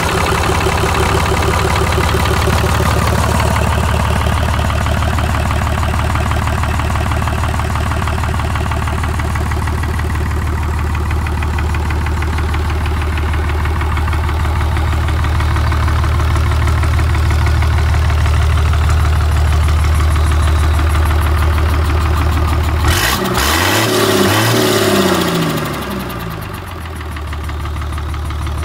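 Hyundai D6BR diesel engine running steadily just after a cold start with the oil pressure being measured. About 23 seconds in, its note shifts in pitch and briefly drops in level, then settles back to a steady run.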